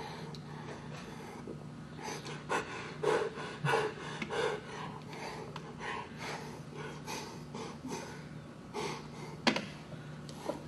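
A person slurping and eating noodles from a bowl with chopsticks: a series of short wet slurps and breaths, loudest a few seconds in, over a steady low hum. A single sharp tap comes near the end.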